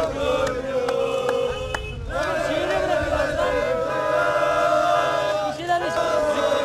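A crowd of football supporters chanting together, many male voices holding and bending sung notes.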